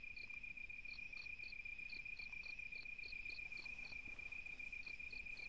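Crickets chirping faintly as night ambience: a steady high trill with a higher chirp pulsing about three times a second in short runs, pausing now and then.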